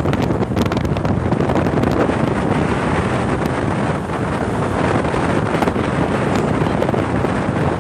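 Wind buffeting the microphone of a fast-moving vehicle, a steady loud rush, with road traffic mixed in.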